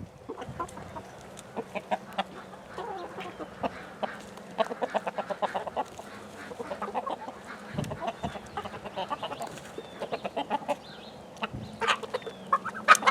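Backyard chickens clucking, many short clucks in quick runs, with a few sharp taps near the end.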